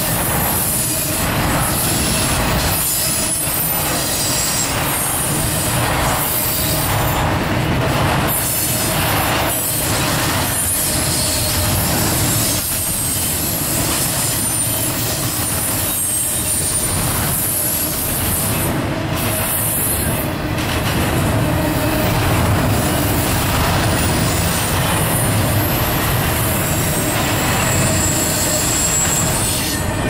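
Intermodal freight cars (trailers on flatcars and double-stack container well cars) rolling past close by: a steady rumble of steel wheels on rail with repeated clicks over rail joints and a high-pitched wheel squeal.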